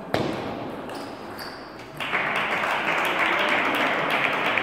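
One hard table tennis stroke, a celluloid ball hit sharply with a paddle, just after the start. About two seconds later, applause begins and keeps going.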